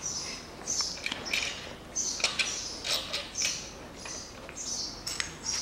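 Small birds chirping in short repeated calls about every half second, with a few light metal clicks as the main bearing caps are handled on a bare Mitsubishi 4B10 engine block.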